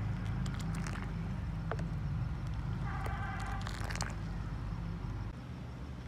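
A steel ladle clinks and scrapes against a steel cooking pot of simmering kahwa, giving a few sharp clicks and a short metallic squeal about three seconds in. A steady low hum runs under it and drops away near the end.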